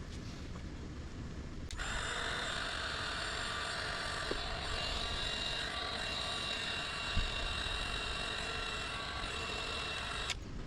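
Electric heat gun switched on about two seconds in, blowing steadily with a motor whine, then switched off near the end, shrinking heat-shrink tubing over a wire splice.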